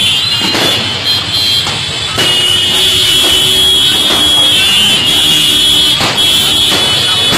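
Diwali firecrackers going off: a few sharp cracks over a steady high-pitched whistling hiss that grows louder about two seconds in.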